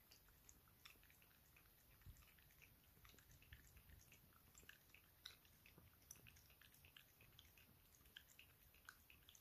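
A Bolonka Zwetna dog lapping milk from a small glass bowl: a faint, quick, irregular run of tongue laps, several a second.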